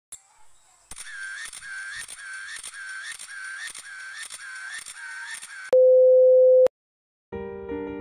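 Electronic intro sound effect: evenly spaced ticks, each with a short chirping tone, about two a second, cut off by a loud steady one-second beep. After a brief silence, soft electric-piano music begins near the end.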